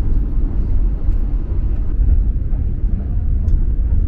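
Steady low rumble of a passenger train running, heard from inside the carriage.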